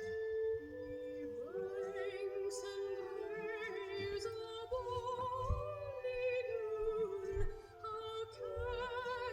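Music from a vinyl record on a record player: a singer with a wide vibrato comes in about a second and a half in, over held instrumental chords.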